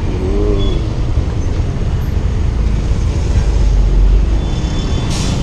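Rush-hour city traffic heard from a bicycle threading between stopped cars: a loud, steady low rumble of engines with wind on the microphone. A short hiss comes near the end.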